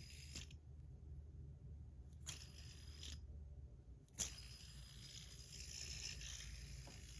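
Damascus steel fidget spinner flicked into a spin on its R188 bearing, giving a high, hissing whir. It starts again with a click about two seconds in and again about four seconds in, going quiet between flicks.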